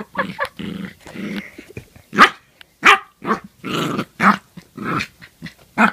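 A puppy growling and yapping in short, irregular bursts while play-biting a person's hands.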